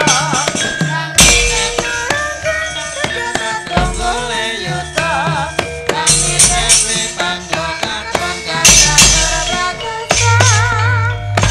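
Javanese gamelan ensemble playing, its sustained bronze metallophone tones broken by frequent sharp metallic clattering of the kind made by the dalang's kecrek plates, with a wavering melody line coming and going above.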